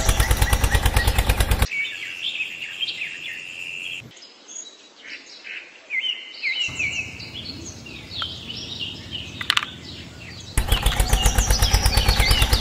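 Birds chirping in short, high, repeated calls over faint outdoor background, in a few spliced stretches. A loud music track with a fast, steady beat plays for the first second and a half and comes back about two seconds before the end.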